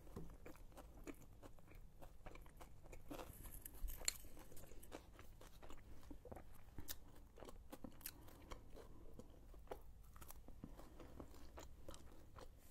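A person chewing a mouthful of shawarma: faint, irregular wet clicks of the mouth.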